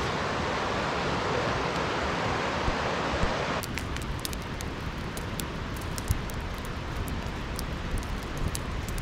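A flowing creek's steady rush of water. About three and a half seconds in, it cuts to a wood campfire of wet split logs crackling, with many sharp pops.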